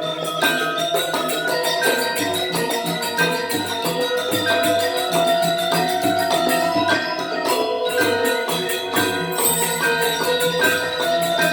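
Balinese gamelan ensemble playing Legong dance music: rapid, interlocking strokes on bronze metallophones over ringing gong tones, with small cymbals clashing.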